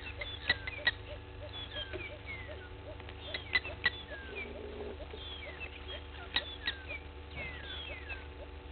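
Outdoor bird chorus: many birds giving short falling chirps and whistles, with sharp clicks every few seconds, several in quick pairs, over a steady low hum.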